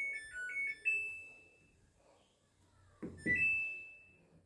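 Samsung top-loading washing machine's control panel chiming as its buttons are pressed: a quick tune of several beeps ending on a held note, then a rising two-note beep about three seconds in.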